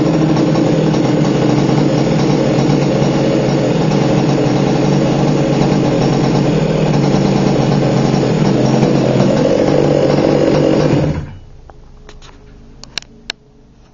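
An HPI Baja 5B's two-stroke petrol engine running at a steady speed, then shutting off abruptly about 11 seconds in, followed by a few faint clicks. The owner posted it as an unknown sound coming from the buggy.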